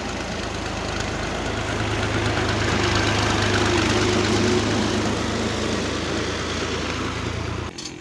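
Farm tractor's diesel engine running close by, a steady low drone that grows louder through the middle and then eases, cutting off abruptly near the end.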